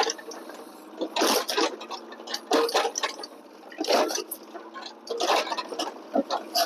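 Irregular crunching and cracking of the broken wooden dresser under a Yanmar excavator, in bursts every second or so, with the machine's steady engine hum underneath.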